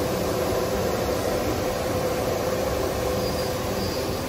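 Anderson CNC router running: a steady rushing noise with a faint steady hum underneath.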